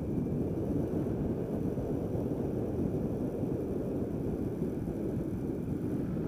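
Steady low rush of wind on the microphone of a GY6-swapped Honda Ruckus scooter riding at speed, with the engine running underneath it.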